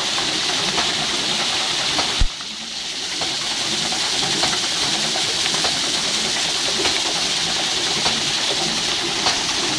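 Water jet from a plastic pipe splashing steadily onto the paddles of a turning homemade water wheel. A sharp knock comes about two seconds in, and the splashing is briefly quieter just after it.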